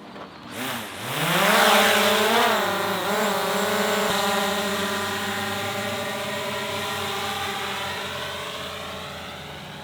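DJI Mavic Air 2S drone's propellers spinning up for take-off, the whine rising steeply in pitch, wavering, then settling into a steady hover whine that slowly fades as the drone climbs away.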